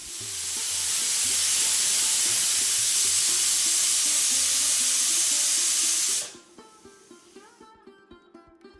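Stainless-steel pressure cooker whistling: steam jets out past the weighted whistle valve in a loud, steady hiss that builds over the first second and cuts off suddenly about six seconds in. The release means the cooker has come up to pressure.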